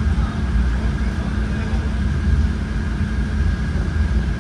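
Regional train running along the line, heard from inside the carriage: a steady low rumble with a faint, even high whine above it.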